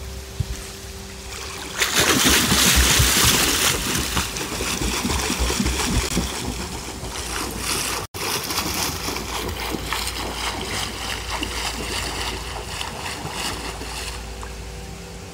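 Pool water splashing from a swimmer's kicking while she floats on her back on a foam pool noodle. It starts suddenly about two seconds in, is loudest for the first couple of seconds, then goes on as a rhythmic churning of repeated kicks that fades near the end.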